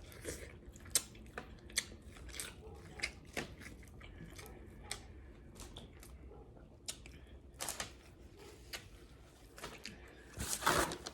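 Close-up eating sounds from a snow crab mukbang: irregular wet clicks, crackles and chewing, with a louder cluster of crunches near the end.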